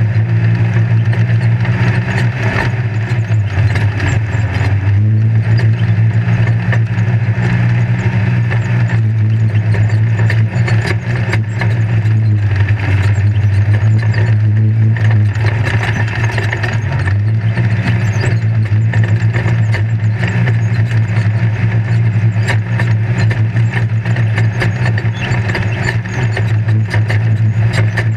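Off-road race vehicle's engine running under load, heard from inside the roll-caged cab, its note dropping and rising several times as speed changes. Frequent short rattles and knocks from the vehicle jolting over rough ground.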